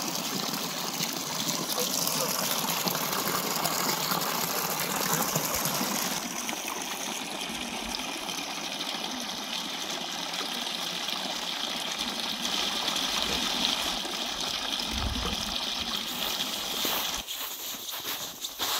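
Water running from the metal spouts of a stone fountain and splashing into the trough below, a steady rushing gush; it stops near the end.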